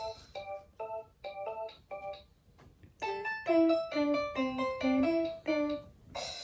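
Children's Anpanman toy electronic keyboard playing short, bright notes: a few evenly spaced notes, a pause about two seconds in, then a quicker run of notes with a lower line beneath them.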